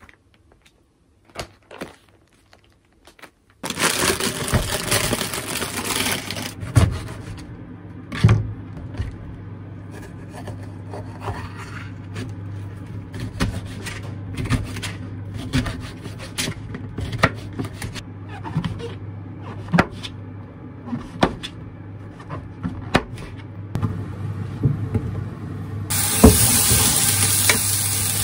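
A few seconds of faint paper handling, then a kitchen knife cutting a red bell pepper on a plastic cutting board: irregular taps and knocks of the blade on the board over a steady low hum. Near the end, sliced king oyster mushrooms start sizzling in a frying pan as a wooden spatula stirs them.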